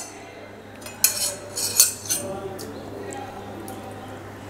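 Steel spoon scraping grated ginger out of a stainless steel bowl, with a few sharp metal clinks and scrapes in the first two seconds.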